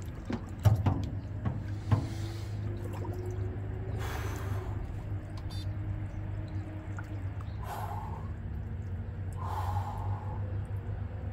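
Water sloshing in a galvanized stock tank of ice water as a man lowers himself in, with a few sharp knocks in the first two seconds. Forceful breaths and gasps follow, about four, eight and ten seconds in, over a steady low hum.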